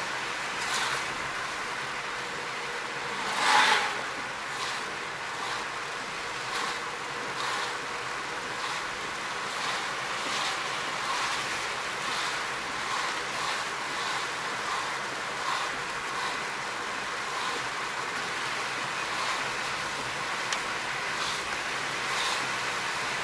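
Inside a car driving through heavy rain: a steady hiss of rain and wet tyres on the road, with the windscreen wipers sweeping about once a second. A louder whoosh comes about three and a half seconds in.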